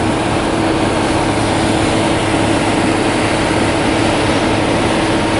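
Steady drone of an engine running at constant speed, with a constant hum.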